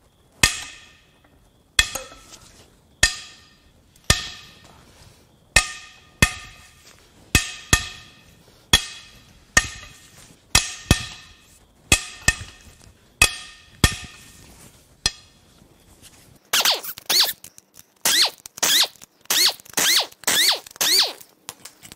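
Cylinder head bolts on an aluminium VQ35HR head being broken loose with a breaker bar: a series of sharp cracks with a short metallic ring, about one a second. Near the end an air impact wrench spins the loosened bolts out in short bursts that rise and fall in pitch.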